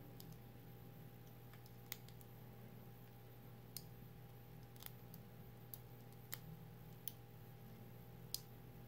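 Near silence with a low steady hum, broken by about eight faint, scattered clicks of a small plastic window-switch housing being handled in the fingers.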